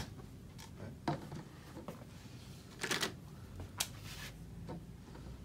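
A few scattered light clicks and taps of a plastic cup and a permanent marker being handled on an upturned plastic bucket, the loudest about three seconds in.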